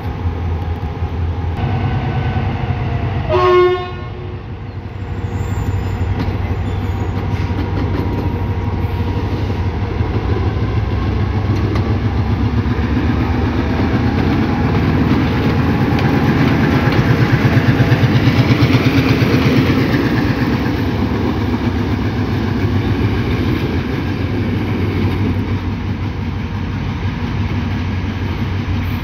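Sri Lanka Railways M6 class diesel locomotive running with a steady low engine drone as it moves slowly along the track. It sounds a short horn toot about three and a half seconds in, and the engine grows louder as the locomotive passes close by around the middle.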